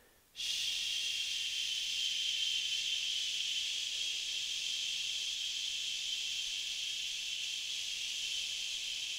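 A man's long, steady "shh" hushing exhale, starting about half a second in: a controlled breath out through the teeth to empty the lungs in a breathing exercise.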